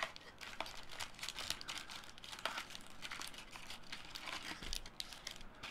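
Dense crinkling and rustling of trading card packs being handled as a hobby box of hockey cards is opened.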